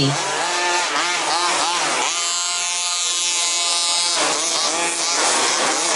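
Several 1/5-scale petrol two-stroke RC Baja buggy engines revving up and down as they race, the pitch rising and falling over and over. From about two to four seconds one engine holds a steady high pitch before the rising and falling resumes.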